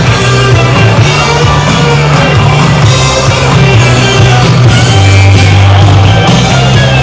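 Loud rock music playing, with a steady bass line that shifts to a lower note about five seconds in.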